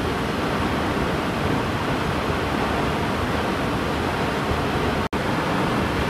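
Steady, loud rush of a waterfall, falling water with no distinct events. It cuts out for a split second about five seconds in.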